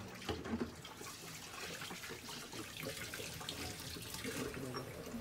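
Running water splashing steadily, with faint voices in the background.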